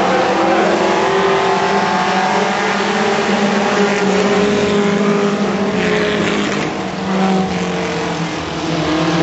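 A pack of four-cylinder mini stock race cars racing together, their overlapping engine notes shifting in pitch as the cars go round and pass.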